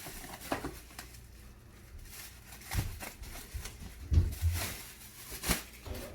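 A few scattered knocks and clicks with light rustling from a plastic RC toy car and its packaging being handled, the loudest knock about four seconds in.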